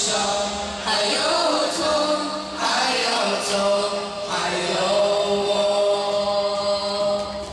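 A mixed group of teenage boys and girls singing together into handheld microphones, in sung phrases with long held notes; the singing fades near the end.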